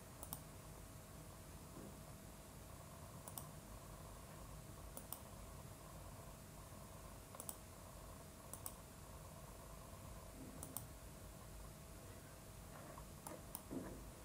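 Computer mouse clicking as components are placed in a schematic program: about eight sharp, short clicks a second or two apart, some in quick pairs, over a faint steady hum.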